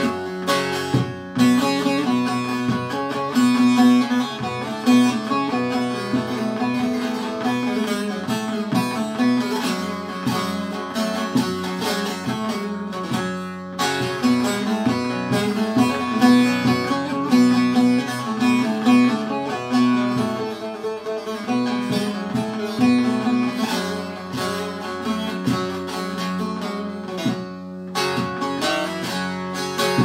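Two bağlamas (long-necked Turkish saz lutes) playing together in an instrumental interlude between sung verses of a Turkish folk song: a continuous run of quick plucked notes over steady sustained lower notes.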